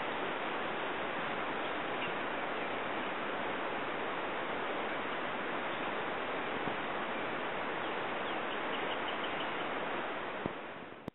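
Steady, even outdoor background noise with a few faint bird chirps about eight seconds in. The sound fades out just before the end.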